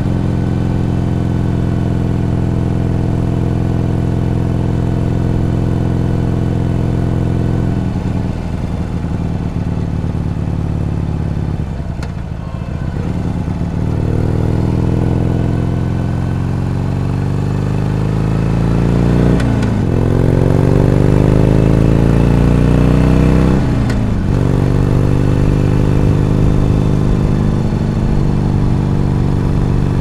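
Harley-Davidson Iron 883's air-cooled 883 cc V-twin engine under way. It runs steadily, eases off about a third of the way in, then pulls up through the gears, its note rising with a sharp break at each of two gear changes before settling to a steady cruise.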